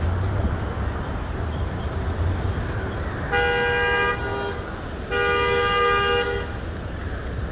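Car horn honking twice, a short blast and then a longer one, over a steady low street rumble.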